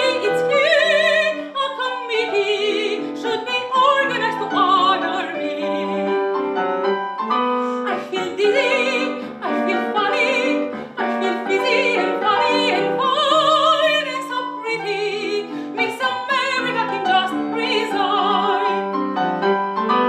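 Operatic singing with wide vibrato, accompanied by piano.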